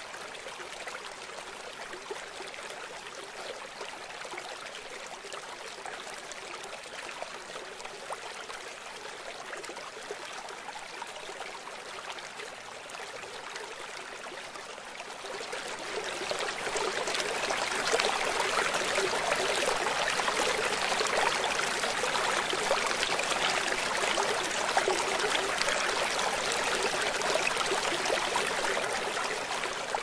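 Shallow stream water running over a rock bed, a steady rushing and trickling that grows clearly louder about halfway through.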